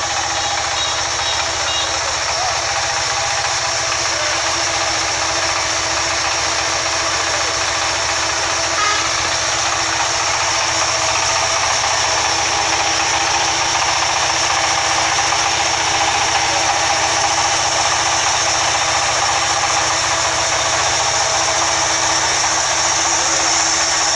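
Sawmill machinery running steadily, a loud, even mechanical drone with a high hiss, from the band saw rig standing idle between cuts.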